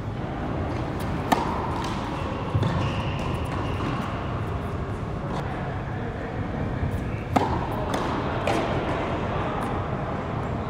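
Tennis balls struck by rackets and bouncing on an indoor hard court: several sharp pops with a short echo, the clearest four spread through the rally, over a steady low background rumble.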